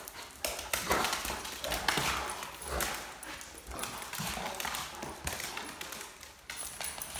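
Dogs' claws clicking and paws thudding in quick, irregular scrabbles on a hard tile floor as a black Great Dane and a smaller black dog romp and wrestle.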